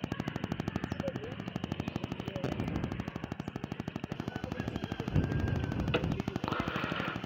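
Motorbike engine running at low speed, a rapid even putter of exhaust pulses; it gets louder about five seconds in.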